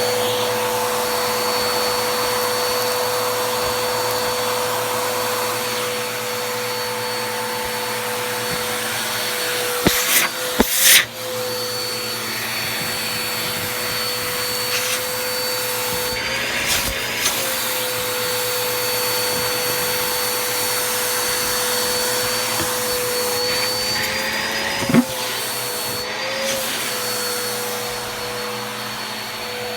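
Bissell vacuum cleaner running steadily with its brush tool on bed sheets, picking up hair. The motor's whine wavers briefly in pitch twice, and there are a few sharp knocks about ten seconds in.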